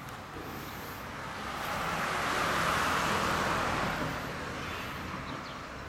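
A vehicle passing on the road, its tyre and engine noise swelling to a peak about three seconds in and then fading away.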